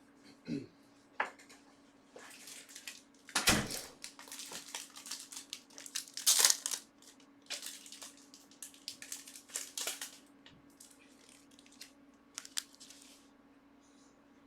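Trading-card pack wrappers being torn open and crinkled by hand: irregular crackling and tearing, loudest twice in the first half, over a faint steady hum.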